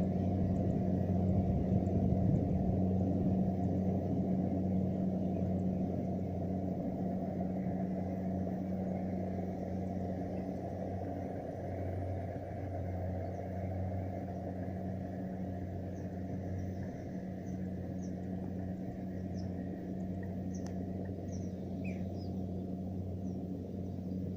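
Rice combine harvester's engine running with a steady low hum, gradually fading. A few faint bird chirps come in during the second half.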